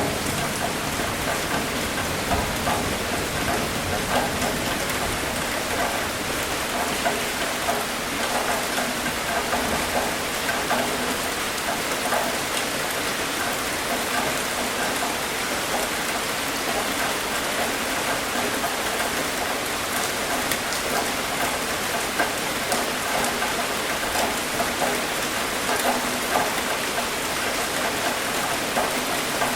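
Steady rain falling evenly, with the tail of a low thunder rumble dying away in the first second.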